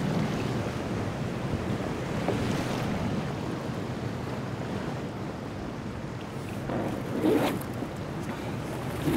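Sea waves washing and wind blowing around a small rubber dinghy on open water. There is a louder swash about seven seconds in and again at the very end as the oars dip.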